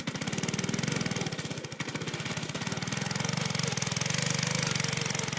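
Go-kart's small engine running in rapid, even pulses as the kart is driven through snow.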